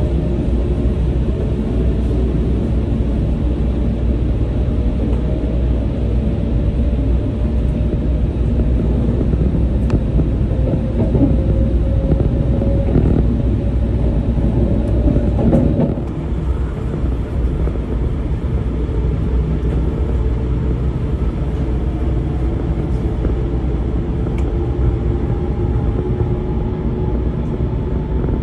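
Onboard sound of an E4 series Max Shinkansen pulling out of a station: a steady rumble of wheels on rail, with a motor whine slowly rising in pitch as the train gathers speed. About sixteen seconds in it cuts to a second departure, where the whine again begins to climb.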